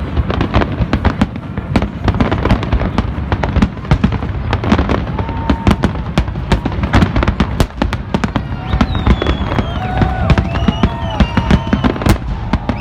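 Fireworks display: a dense, rapid series of bangs and crackles throughout, joined in the second half by high whistles that glide in pitch.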